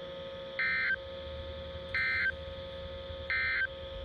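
NOAA Weather Radio receiver sounding the three short, identical buzzy SAME data bursts (EAS digital header tones), about a second apart, that make up the end-of-message code closing a Required Weekly Test broadcast. A faint steady hum from the radio runs underneath.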